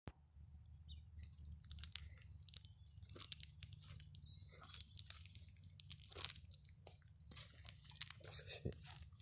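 Faint irregular crunching and crackling over a low steady hum; the buggy's engine is not heard running.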